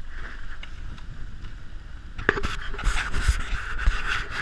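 Wind buffeting a handheld action camera's microphone, with rubbing and scraping against a jacket as the camera is moved, thickening about two seconds in.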